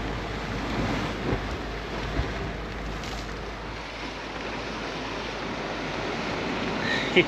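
Steady noise of wind and heavy rain, with wind rumbling on the microphone.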